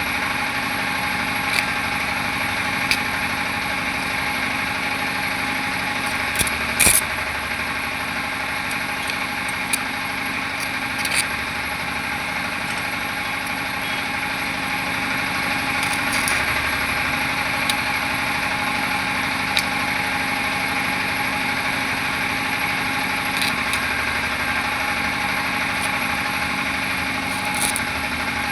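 Welding on a Bajaj Pulsar motorcycle chassis: a steady, even drone with a few sharp clicks.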